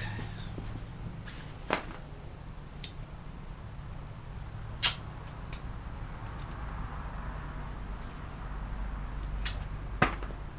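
A few scattered sharp clicks and taps of small parts and tools being handled at a workbench, the loudest about five seconds in, over a low steady hum.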